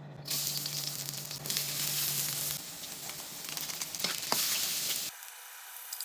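Food frying in hot oil in a pan, sizzling unevenly, and the sizzle cuts off suddenly about five seconds in.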